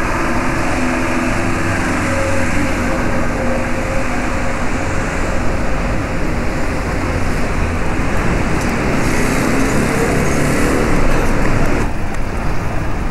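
Steady road traffic noise, a dense rumble and hiss of vehicles, which shifts in character near the end.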